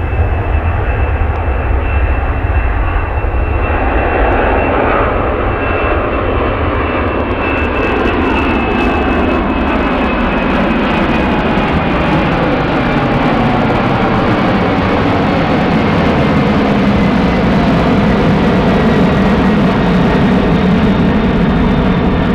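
Boeing 747-400's four jet engines at takeoff power, a loud continuous roar with a high whine. From about four seconds in the tones fall slowly in pitch as the jet passes and climbs away.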